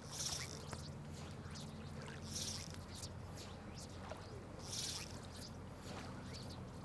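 Short, high, buzzy chirps repeating every two seconds or so over a steady low hum.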